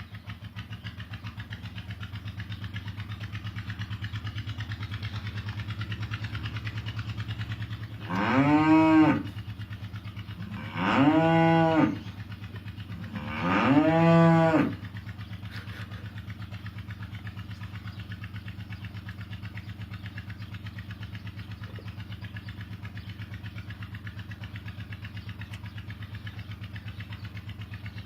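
A cow mooing three times in a row, each call about a second long and rising then falling in pitch, over a motor running steadily.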